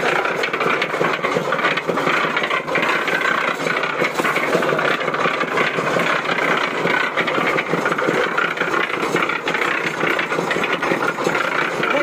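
Small cement mixer running, its drum turning and rattling as soapy water and clothes slosh and tumble inside.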